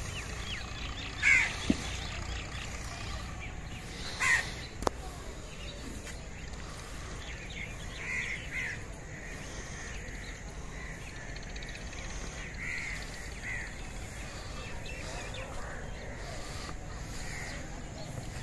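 Crows cawing: two louder caws about a second and four seconds in, then several fainter caws, over a steady low background noise.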